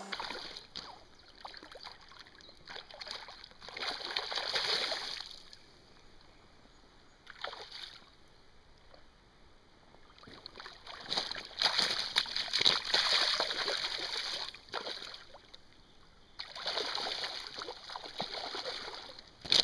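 A hooked grilse (a small Atlantic salmon) thrashing and splashing at the surface of shallow river water, in bursts: about four seconds in, a longer spell from about eleven to fifteen seconds, and again near the end.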